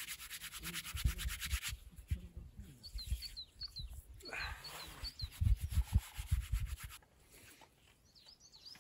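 Hands scooping and rubbing snow, then scrubbing it over a face, with a fast rasping rub in the first second or two and a few low thuds around the middle. Small birds chirp briefly several times in the middle and again near the end.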